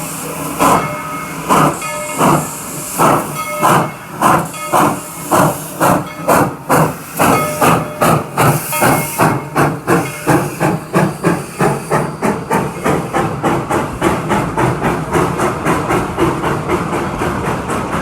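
Baldwin 2-8-2 narrow-gauge steam locomotive chuffing as it pulls away, with steam hissing between the exhaust beats. The beats speed up steadily, from under two a second to about three a second near the end.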